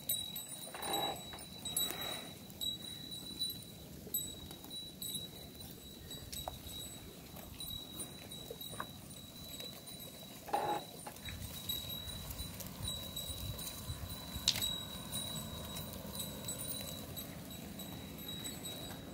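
Flock of sheep and goats grazing: a few short bleats, about one and two seconds in and again about halfway through, over soft rustling and scattered clicks from hooves and cropping of weeds. A thin steady high whine runs underneath.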